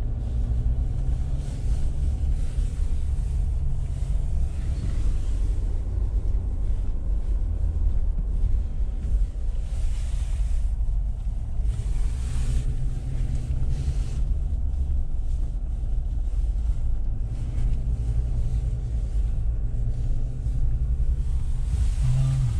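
Steady low rumble of a moving car: engine and road noise.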